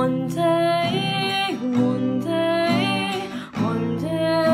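A woman singing long held notes over a strummed acoustic string instrument, sliding between some of the notes.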